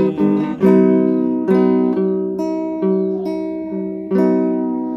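Acoustic guitar strummed, a chord struck about once a second and left to ring.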